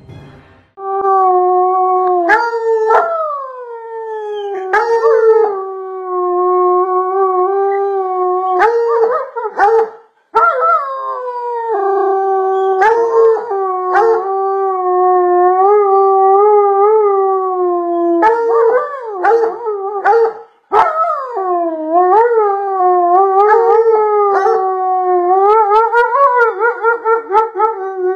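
A dog howling in long, drawn-out howls that waver up and down in pitch, breaking off briefly about ten seconds in and again about twenty-one seconds in.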